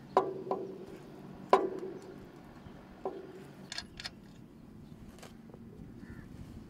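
Sharp metallic clanks of a hand tool against the truck's steel lamp bracket and housing, four in the first three seconds, each ringing briefly. A few lighter clicks follow over a low steady hum.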